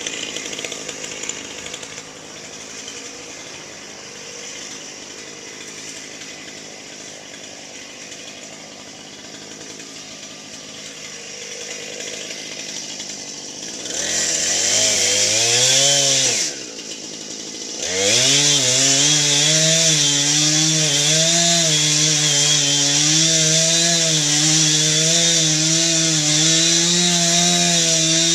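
Husqvarna chainsaw running low and quiet at first, then revved up about halfway through. It drops back briefly, then is held at high revs cutting into cherry wood, the pitch wavering under load, and falls off right at the end.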